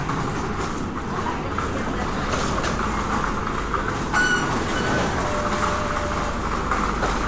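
Steady rumbling vehicle noise, with a brief high squeal about four seconds in.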